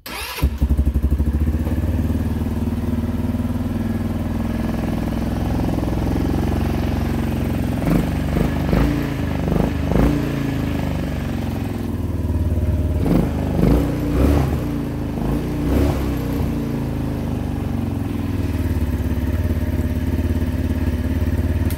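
Coolster 150cc ATV's single-cylinder four-stroke engine starts about half a second in and idles steadily, with a run of short throttle blips in the middle. It draws its intake air through a homemade snorkel of old vacuum hose, and the air can be heard.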